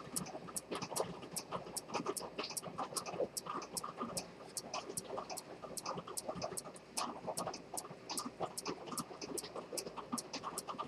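Antique Dent detent-escapement fusee pocket watch ticking steadily, about three sharp ticks a second, over a faint irregular background noise.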